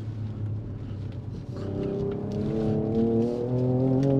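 Ford Ranger Raptor's twin-turbo V6 under full throttle in Baja mode, which opens up the exhaust. It is eased off at first, then from about a second and a half in it pulls hard, its pitch rising steadily as the truck accelerates.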